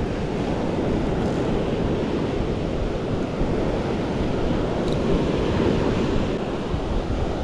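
Ocean surf washing up a sandy beach, with wind buffeting the microphone: a steady noise without breaks.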